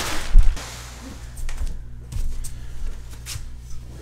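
Clear plastic mattress wrapping crinkling and crackling as it is pulled off and dropped, in scattered short crackles. A dull thump about half a second in is the loudest sound.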